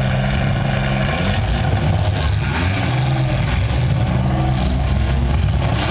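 Demolition derby car engines running together in a steady drone, with revving rising and falling over it.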